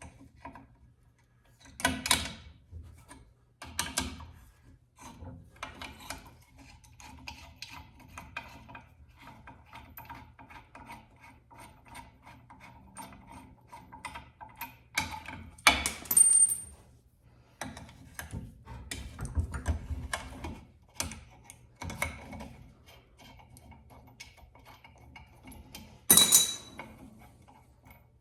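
Metal clicking, rattling and clanking from a drill press's rusty, stiff-moving quill and feed mechanism being worked by hand, with a few louder metal clanks, two of which ring briefly.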